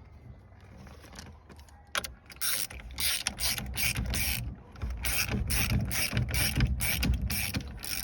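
Hand tool working parts of a truck's steering column back together: a fast run of short, even mechanical clicks, about five a second, starting about two seconds in.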